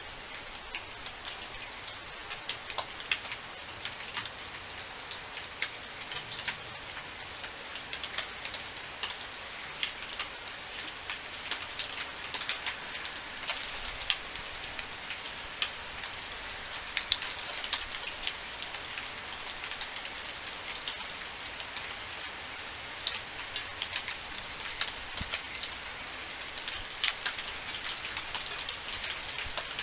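Steady rain falling, with frequent irregular drops tapping sharply on a surface.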